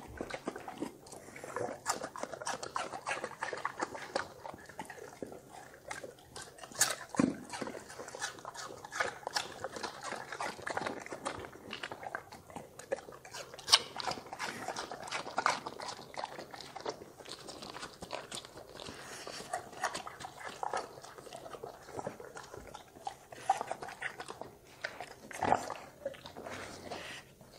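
A Doberman and a bulldog chewing and eating pieces of food off wooden boards: a steady, irregular run of mouth smacks, crunches and clicks of teeth, with a few louder clacks.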